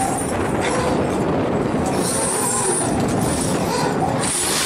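Steady machinery noise on a scallop dredger's working deck, from the boat's engine and lifting gear running. Brief high metallic squeals come about two seconds in and again near the end.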